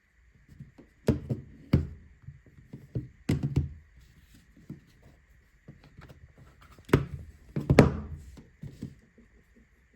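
Irregular dull thumps and knocks of handling on a hard surface, the loudest coming in pairs about a second in, around three and a half seconds in and around seven to eight seconds in. A faint steady high tone runs underneath.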